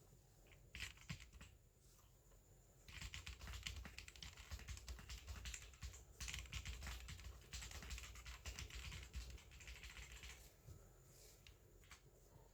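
Typing on an AUKEY KM-G14 mechanical keyboard: a few key clicks, then a long run of fast keystrokes with short breaks, then a few last clicks near the end.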